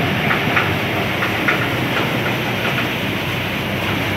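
Malwa paddy thresher running under load while threshing paddy: a steady mechanical drone and rattle with a few short clatters.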